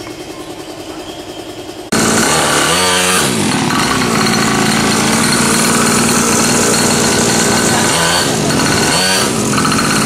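A 50cc two-stroke mini dirt bike engine running: a fainter idle, then about two seconds in a sudden jump to a much louder, buzzing run at higher revs. The pitch dips and climbs back several times as the throttle is worked.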